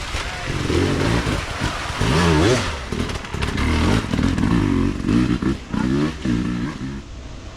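Off-road dirt bike engine revving hard, its revs rising and falling again and again as the rider works through a creek crossing, with a burst of splashing water about two seconds in.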